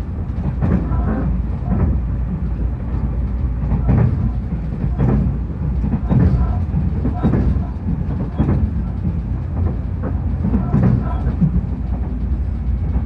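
Cabin noise of a Tobu 500 series Revaty electric limited express running at speed: a steady low rumble, with the wheels clacking over rail joints about once a second.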